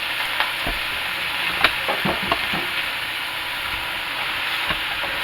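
Chicken chunks sizzling steadily in hot olive oil in a frying pan, with a few short sharp clicks scattered through.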